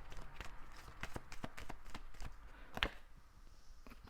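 Oracle cards being shuffled and handled, a run of irregular soft clicks and taps with one sharper snap about three seconds in.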